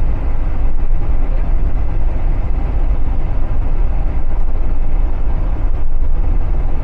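Steady low rumble inside the cab of a Fiat-based motorhome driving at motorway speed: engine and road noise with no break.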